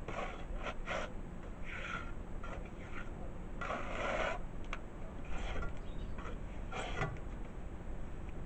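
Steel trowel scraping wet mortar off a hand board and along a wall top in short, irregular strokes, with one longer, louder scrape about four seconds in.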